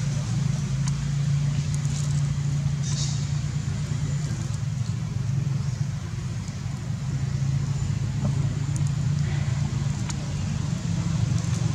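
A steady low mechanical hum, like a running engine, with a brief faint rustle about three seconds in.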